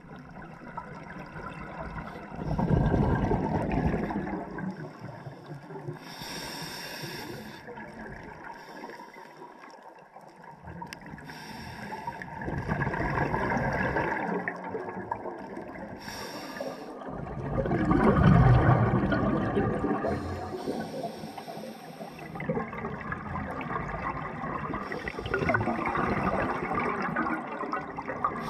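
Scuba diver's regulator breathing heard underwater: a short hiss on each inhale alternating with a louder gurgling rush of exhaled bubbles, repeating every several seconds.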